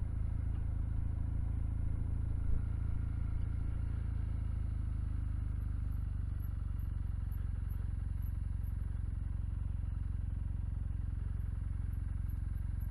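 Kawasaki W800's air-cooled parallel-twin engine running steadily as the motorcycle is ridden.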